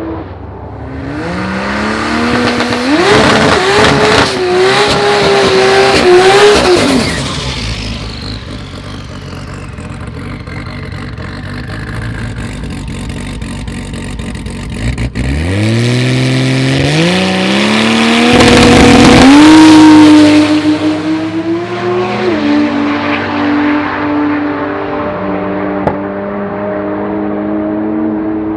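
Turbocharged straight-six drag car at full throttle, twice, its pitch climbing in steps. The second run starts abruptly about halfway through. Near the end the engine settles to a steadier, easing note.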